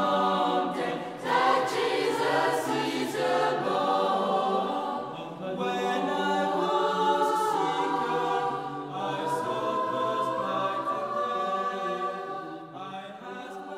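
Choral music: a choir singing held, overlapping notes, fading down near the end.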